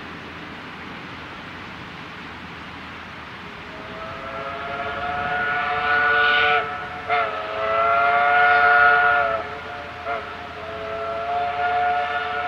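Steam whistle of Baldwin 2-6-2 locomotive No.12, a chime whistle sounding several notes together, starting about four seconds in. Long blasts with short toots between them, the last still sounding at the end.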